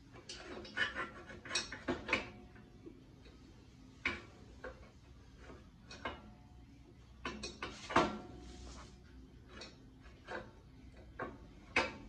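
Disc brake caliper being fitted over the brake rotor onto its bracket: irregular metal clicks and clanks as the caliper and its pads are handled and knocked into place, in several short clusters, with the sharpest knock about two-thirds of the way through.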